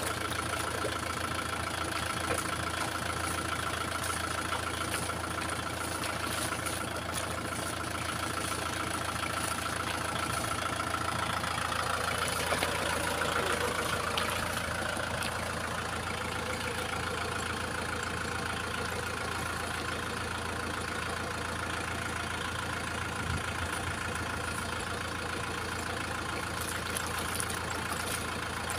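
Kubota M6040 tractor's diesel engine running steadily at idle, with a brief swell about halfway through.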